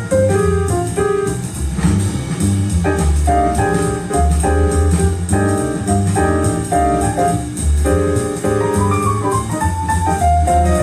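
Instrumental jazz with a strong bass line, played back through a pair of B&W CM9 loudspeakers as a listening test.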